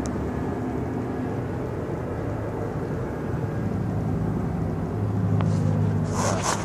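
A low, steady mechanical hum, like an engine or motor running, that grows louder about four seconds in. A few short rustling noises come near the end.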